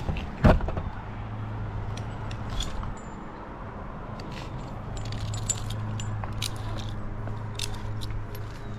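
Metal climbing hardware clinking and jingling: carabiners and gear on a climber's harness knock together as he moves. There is a sharp knock about half a second in, and a low steady hum underneath.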